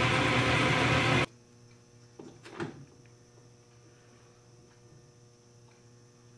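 Metal lathe running steadily while a reamer cuts through the bore of a spindle; the sound cuts off suddenly about a second in. A faint steady hum follows, with one brief small clatter a little later.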